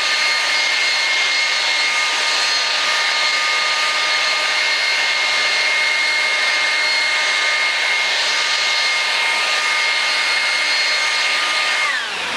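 DeWalt DCBL720P1 20 V brushless cordless handheld leaf blower running steadily: a strong rush of air with a high motor-fan whine, which winds down in pitch near the end.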